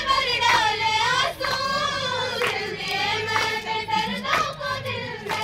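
Girls' voices singing a qawwali in long held, wavering notes, with group hand clapping keeping the beat about once a second.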